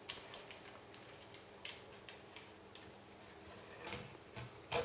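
Faint, irregular plastic clicks and taps from a LEGO limousine being handled, its hinged doors opened and closed, about eight clicks spread over the few seconds.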